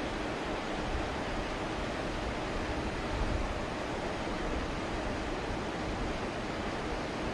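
Steady rushing outdoor noise with wind buffeting the microphone, rumbling unevenly underneath.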